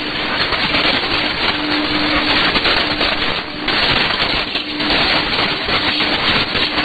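Shortwave AM broadcast received on 6100 kHz through a software-defined radio: a weak signal under heavy static hiss, with a faint low tone coming and going.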